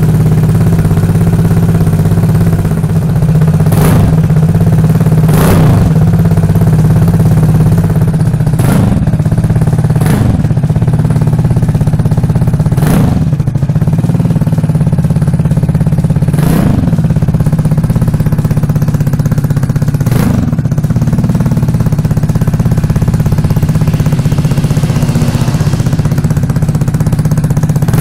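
Vespa Primavera scooter engine running through a freshly fitted VRX aftermarket dual exhaust, on its first run after installation. It idles steadily and is blipped about seven times, each rev rising and dropping back quickly, mostly in the first twenty seconds.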